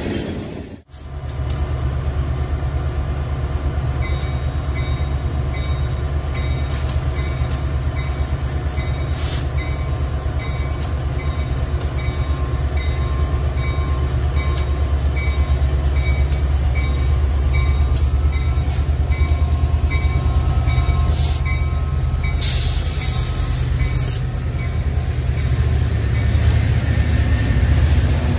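Metra diesel passenger locomotive running close by: a steady, heavy low engine rumble with scattered clicks and knocks. A high tone repeats about twice a second through most of it.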